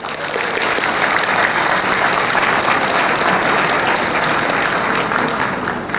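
Audience applauding, a dense steady clapping that dies down a little near the end.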